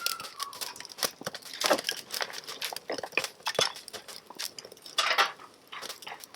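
Campfire of cedar wood and cedar sprigs crackling, with irregular sharp pops and a few louder crackles; the fire has only just been lit and is catching.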